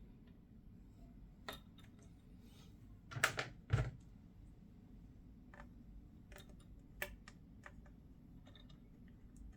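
Scattered small clicks and taps of a model airliner's landing gear parts being handled and snapped into place, with a louder pair of knocks about three to four seconds in.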